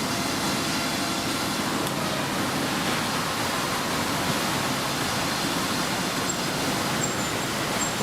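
Steady sawmill machinery noise: an even hiss and rumble with no clear rhythm, and a faint tick about two seconds in.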